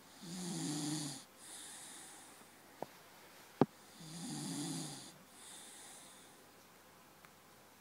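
Dog snoring: two snores about four seconds apart, each followed by a quieter breath. A faint tick and then a sharp click come between the two snores.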